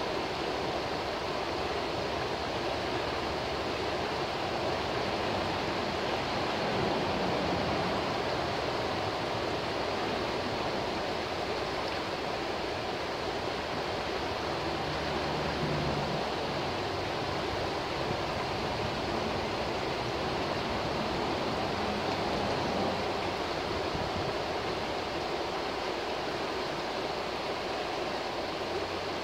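Shallow river rushing over a rocky riffle: a steady, unbroken rush of running water.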